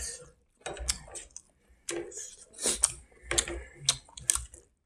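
Close-miked chewing and lip-smacking while eating with the hands: irregular wet mouth clicks and smacks with short gaps between them.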